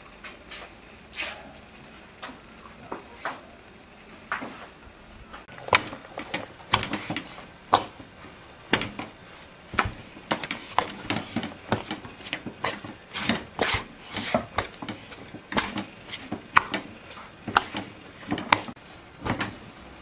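Soft, sticky bread dough being kneaded by hand in a large metal bowl: an irregular run of wet slaps and knocks against the bowl. The slaps are sparse at first and come thick and fast from about six seconds in.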